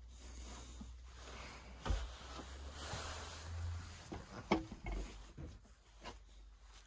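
Rustling and handling noise from someone moving about a cluttered room, with a few light knocks, the sharpest about two seconds in and about four and a half seconds in, over a low rumble.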